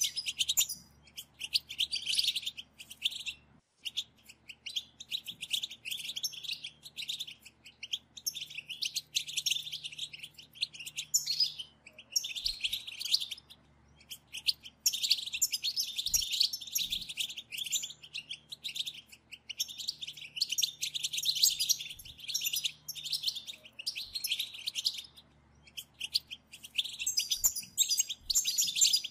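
A group of European goldfinches twittering together in rapid chirping bouts broken by brief pauses: the 'batbata' chatter that keepers play to stir a male goldfinch into song.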